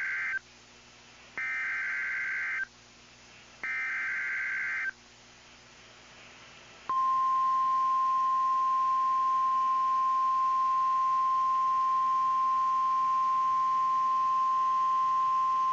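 Emergency Alert System SAME header: the end of one warbling digital data burst, then two more, each about a second long with short gaps between them. About 7 seconds in, the National Weather Service's warning alarm starts: a single steady tone held for about 9 seconds. Together they signal the start of a severe thunderstorm warning broadcast.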